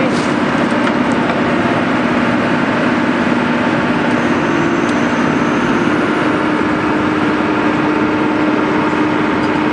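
Heavy machinery running steadily, the diesel engine and hydraulics of an excavator working a pile breaker, a dense even noise with a steady low hum and no distinct blows.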